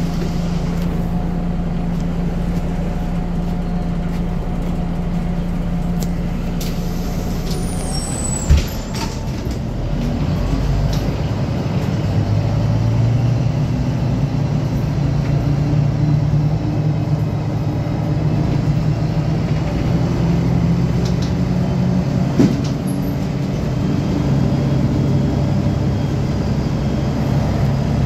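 City bus engine running, heard from inside the passenger cabin: a steady drone that gives way to a rising engine note about ten seconds in as the bus gets moving. Two short knocks stand out, one about eight and a half seconds in and one a little past twenty seconds.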